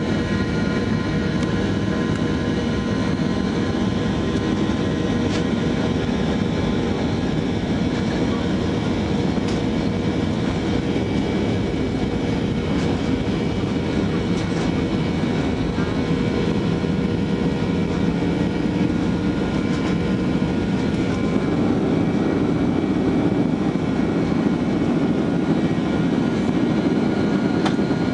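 Inside the cabin of a Boeing 737-800 on its takeoff roll, its CFM56-7B turbofans at takeoff thrust: a steady rush of engine and airflow noise with several steady whining tones. It grows slightly louder in the last few seconds as the aircraft lifts off.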